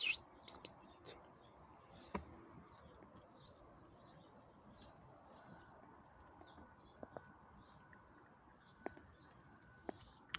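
Quiet outdoor background with small birds chirping faintly throughout. A few sharp soft clicks stand out: one about two seconds in and several more near the end.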